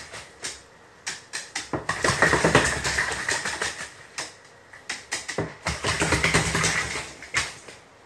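Crow bathing in a plastic basin, beating its wings in the water to splash in repeated bursts of rapid flutter, each lasting about a second, with short pauses between.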